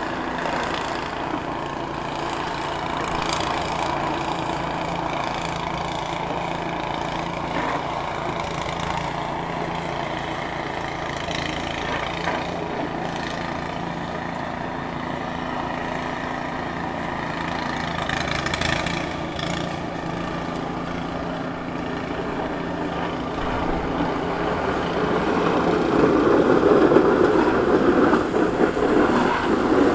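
Ram 3500 plow truck's engine running steadily at low revs. About three-quarters of the way through it grows louder as the truck draws closer, its Fisher plow blade down and pushing snow across the road.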